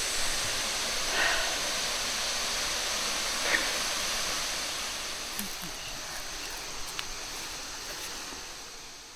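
Steady rush of a waterfall pouring into a plunge pool, a constant hiss of falling water, with faint distant voices now and then.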